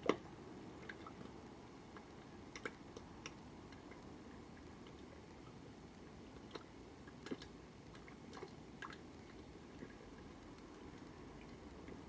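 Thick gunge pouring from a carton onto a person's head, with scattered faint wet splats and drips, and a sharp click at the very start.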